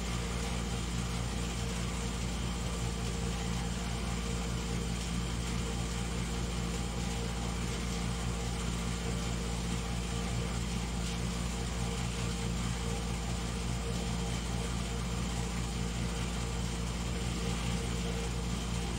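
A steady low mechanical hum with several fixed tones in it, like an appliance or motor running.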